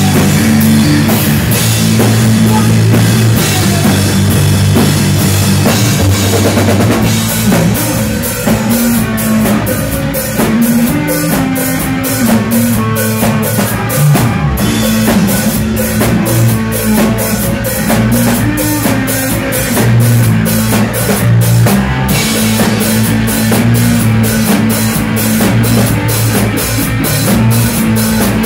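Three-piece grunge rock band playing live: electric guitar, bass guitar and drum kit, loud. About seven seconds in the drums settle into an even, driving beat of several hits a second.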